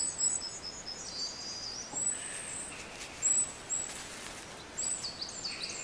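Small birds singing in runs of quick, high, falling chirps over a steady outdoor hiss: meadow ambience.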